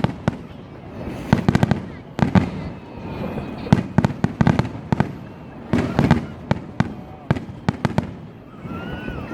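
Aerial fireworks bursting in quick clusters of sharp bangs and crackles, one volley after another through the closing barrage of a display.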